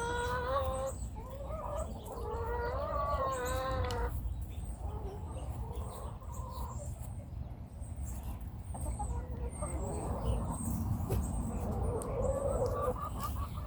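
Domestic hen vocalizing: a drawn-out, wavering call for about the first four seconds, then quieter intermittent clucking, with a brief call again near the end.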